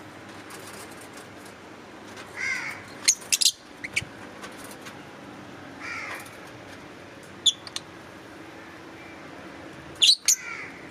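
Fischer's lovebirds calling in short, scattered outbursts: sharp, high-pitched chirps, most of them in quick clusters about three seconds in, a second and a half from the end, and near the end. These mix with a few slightly longer, harsher calls that drop in pitch. There are pauses of a second or more between the bursts.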